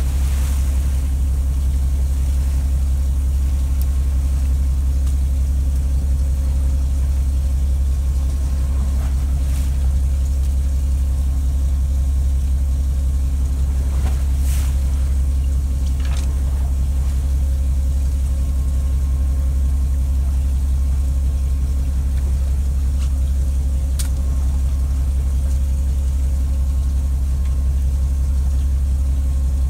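Fishing boat's engine running steadily at idle, a constant low hum, with a few brief clicks or knocks about halfway through and again later.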